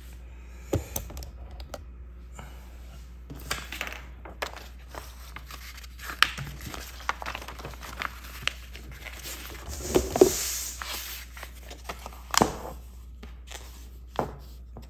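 Paper napkin crinkling and rustling as it is handled and laid on the table, the loudest rustle about ten seconds in, among scattered clicks and knocks of a pot and utensils being handled on the table.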